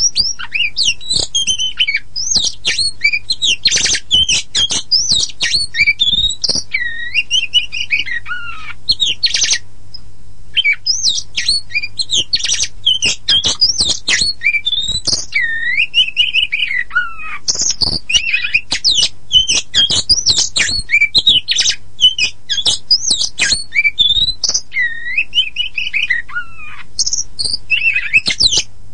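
Oriental magpie-robin of the black-and-white kacer poci type singing a fast, varied song of clear whistles, rising and falling slurs and harsh chattering notes, with a short pause about ten seconds in. A faint low hum runs underneath.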